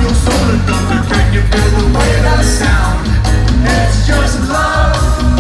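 Live reggae band playing loudly, with a heavy, steady bass line and a man singing into a microphone over it, heard from the crowd.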